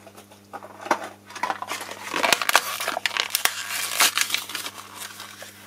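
Small clear plastic bag crinkling and crackling in irregular fits as it is handled and opened by hand.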